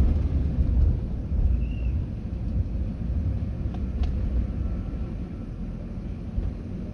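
Low rumble of a car driving, easing off as the car slows to a stop.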